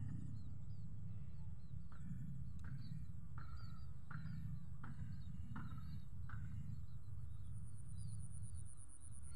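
Short animal calls repeated about once or twice a second over a steady low rumble, with faint high chirping. The calls stop about two seconds before the end, and a thin, high, steady tone sets in.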